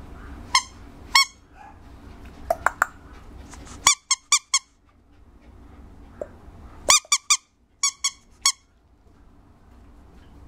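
Squeaky toy squeezed over and over: short, sharp, high squeaks, a dozen or so, coming singly and in quick runs of two to four.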